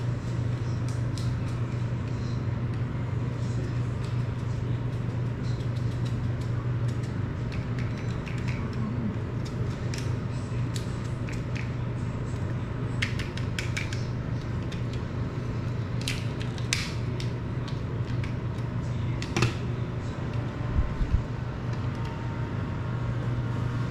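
Light clicks and ticks of small objects being handled, scattered and irregular, strongest in the second half. They sit over a steady low room hum.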